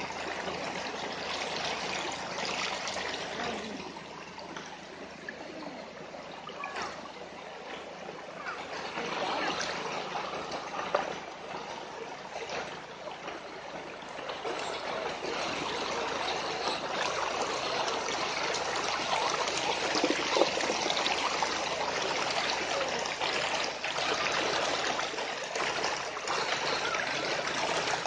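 Shallow river rushing and trickling over rocks, a steady noisy flow that grows louder about halfway through.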